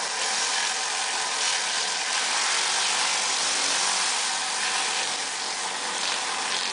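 Pressure washer running steadily: high-pressure water hissing out under a rotary surface cleaner as it is pushed over brick pavers, with an engine hum beneath.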